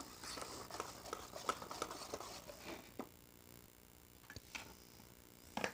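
Cake batter being stirred in a mixing bowl: a quick run of soft taps and scrapes of the utensil against the bowl, easing off about halfway through, with one sharper knock near the end.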